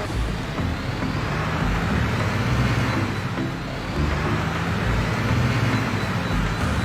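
Motor vehicle engine sound effect, a steady rushing drone, over a stepping bass line of background music.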